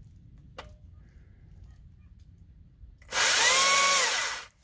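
Stihl MSA 140 C battery chainsaw run for just over a second, about three seconds in: its electric motor whines up in pitch and then falls as the trigger is released, with the chain rasping against the beech log, a quick nick to mark a firewood length.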